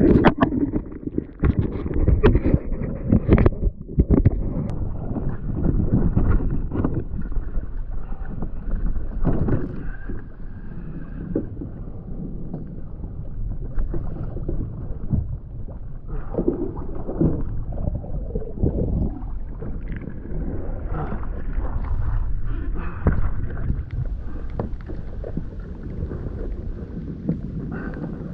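Sea water splashing and sloshing against a sailing kayak's hull, with wind buffeting the microphone. Irregular knocks and splashes come and go as a black marlin is handled alongside and hauled aboard.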